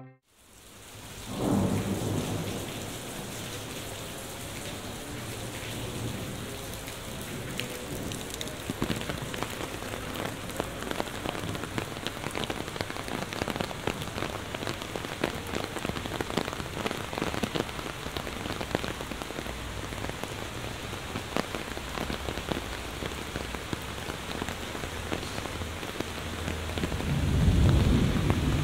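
Heavy rain falling steadily, with many close raindrops ticking and splashing. A low rumble swells up near the end.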